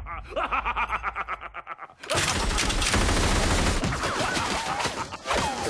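A fast, even ticking for about two seconds, a brief gap, then a big machine gun firing a long, continuous burst: a film's gunfire sound effect.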